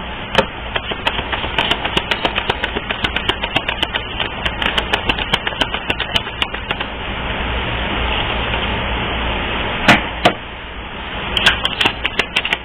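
A deck of tarot cards being shuffled and handled: rapid clicks and slaps of cards over a rustling hiss for the first several seconds, a steadier rustle after, and a couple of sharp taps near the end.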